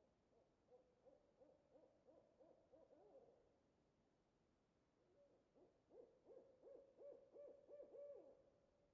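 An owl calling in two runs of quick hoots, about three notes a second, each run lasting two to three seconds; the second run is louder.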